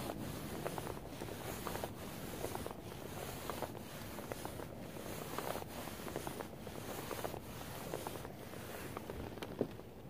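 Water rushing along the hull of a Hobie Revolution 16 pedal kayak moving fast. The sound swells and dips about once a second with the strokes of its Mirage pedal drive, eases off near the end, and is broken by one sharp click.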